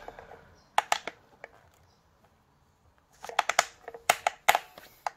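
Sharp clicking from a 1/5-scale RC truck's front differential as its driveshaft is turned by hand: two clicks about a second in, then a quick run of clicks from about three seconds in. The front diff has let go.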